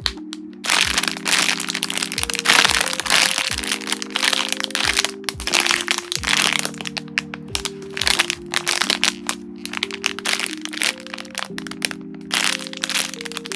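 Clear plastic bags crinkling and crackling in irregular bursts as hands squeeze and turn foam squishy toys inside them, over soft background music.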